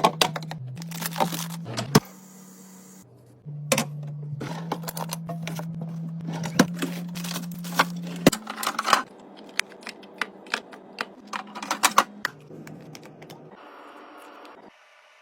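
A rapid run of sharp clicks, knocks and clatters, like containers, jars and lids being set down and snapped shut while a fridge is organized. Under it runs a low steady hum that shifts pitch a few times. The clicks die away about twelve seconds in.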